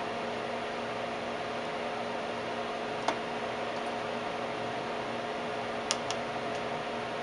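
Steady fan noise and mains hum from a vacuum-tube Tektronix 549 oscilloscope, with a sharp click about three seconds in and two more close together near six seconds as the pattern generator's controls are switched.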